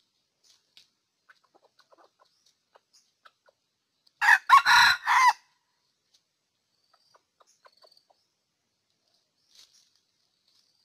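Red junglefowl rooster crowing once, a short broken crow lasting about a second, a few seconds in. Faint scattered ticks and small chirps before and after it.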